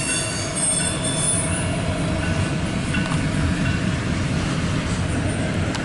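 CSX intermodal freight train's double-stack container well cars rolling past: a steady rumble of wheels on rail, with a high wheel squeal in the first second or so. Heard from inside a car.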